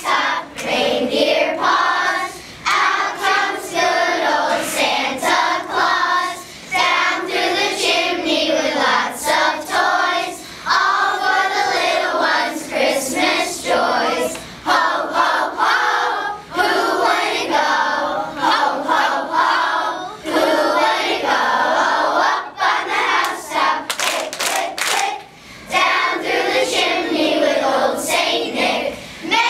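A group of young children singing a song together in unison, with a few sharp hand claps a little after halfway through.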